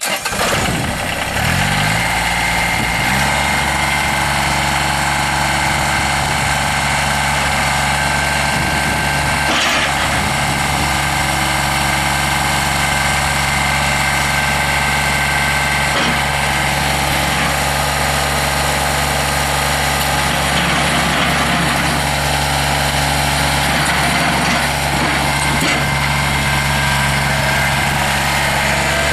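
A Kubota D905 three-cylinder diesel engine in a Kubota BX22 tractor starts up, rising in pitch over the first few seconds, then idles steadily.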